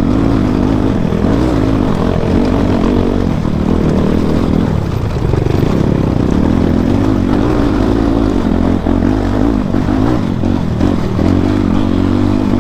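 Motorcycle engine running steadily under way on a rough off-road track, its pitch rising and falling with the throttle.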